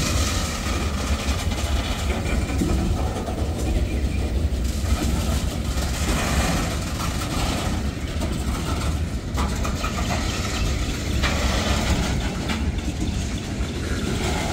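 Freight train tank cars and covered hopper cars rolling past: a steady low rumble of steel wheels on the rails.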